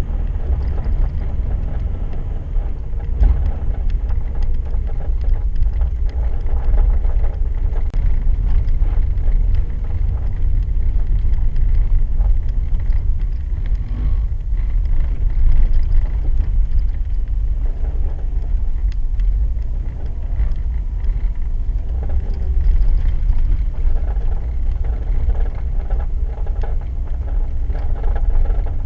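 Car driving on an ice track, a steady low rumble of engine and tyres on ice.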